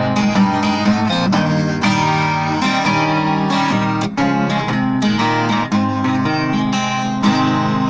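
Instrumental break in a gospel song: guitar picking and strumming over the band's accompaniment, with no singing.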